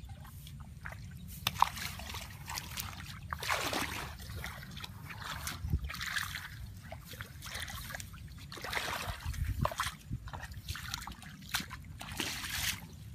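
Shallow muddy water splashing and sloshing in irregular bursts, with a few sharp clicks, as someone wades and gropes through it by hand. A low steady rumble runs underneath.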